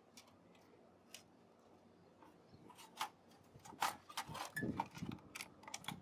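Faint handling clicks and knocks of a motherboard being lifted out of an HP ProDesk small-form-factor PC's sheet-steel case. Almost nothing for the first half, then a run of irregular light taps and a few soft knocks in the last three seconds.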